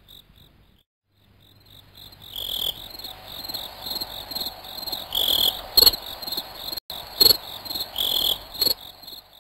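Crickets chirping in rapid, high-pitched pulses, breaking off briefly just before a second in, with a low steady hum underneath and a few louder clicks.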